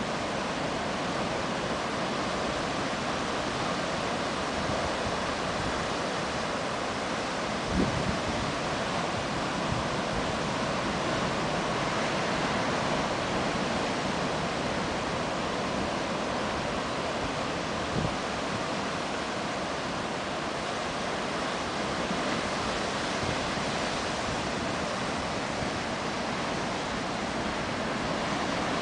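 Ocean surf breaking over a rocky lava reef shoreline: a steady, unbroken rush of white water, with wind on the microphone. Two brief low thumps stand out, one about eight seconds in and another about ten seconds later.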